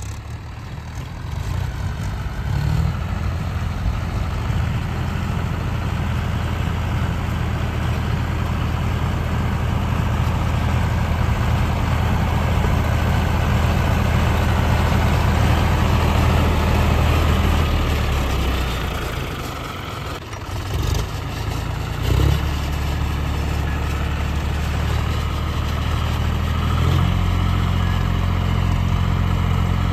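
Tractor diesel engine running steadily, dipping briefly about two-thirds through, with a single knock just after, then running on with a change in engine note near the end.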